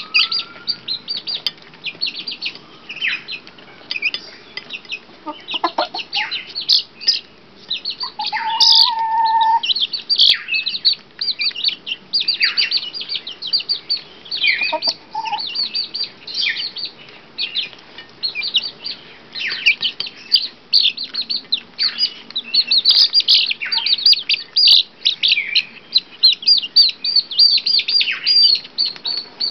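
Baby chicken peeping over and over, several short, high, falling peeps a second without pause. A brief steady call sounds about nine seconds in.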